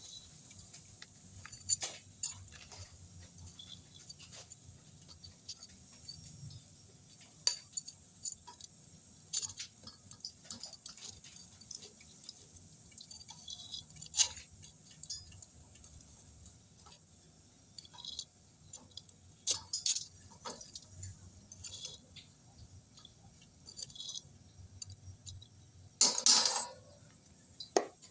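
Scattered light clinks and taps of kitchenware being handled, at irregular intervals, with a louder rustling scrape about 26 seconds in.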